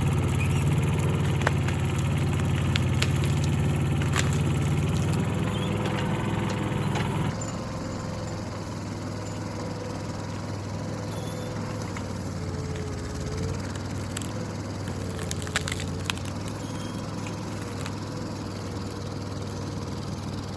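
Mini excavator engine running steadily, dropping to a lower, quieter note about seven seconds in, with scattered snaps and cracks of wood and branches.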